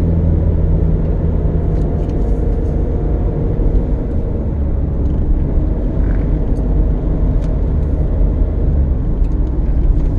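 Car driving, heard from inside the cabin: a steady low engine and road drone, with a few faint clicks.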